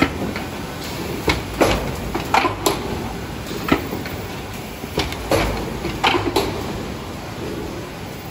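Automatic rigid box making machine running: a steady mechanical background with repeated sharp clacks and knocks as its pusher arms and folding plates move, several coming in quick pairs.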